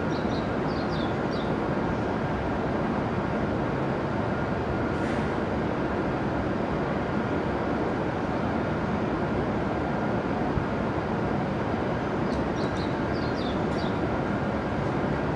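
Steady rushing background noise of a Shinkansen station platform, with no melody or announcement yet. Brief clusters of high chirps come near the start and again near the end.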